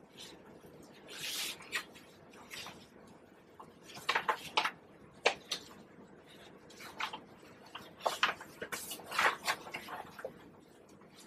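Chinese ink brush dragged and pressed across paper in dry-brush strokes: a series of short, irregular scratchy rasps, with the busiest clusters near the middle and toward the end.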